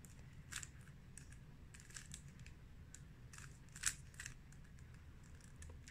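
Plastic 3x3 Rubik's cube being turned by hand: faint, irregular clicking of the layers snapping round, with a louder click about four seconds in.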